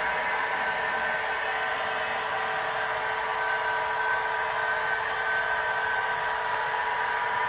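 Märklin model locomotive's small electric motor whining steadily as the train runs along the track, a steady whine over a hiss.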